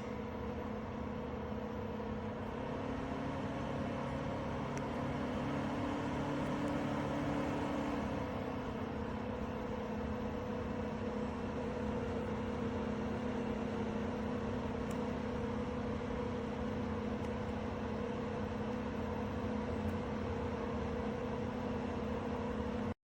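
Small electric fan motors of a portable evaporative air cooler running with a steady hum and airflow noise. A second, slightly higher hum joins about two seconds in and drops away around eight seconds.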